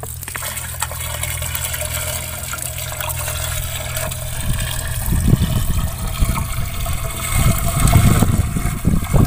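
Water poured from a steel bucket into the open priming port of a centrifugal irrigation pump, splashing into the casing to prime it before starting; the pouring gets heavier about halfway through. A steady low hum runs underneath.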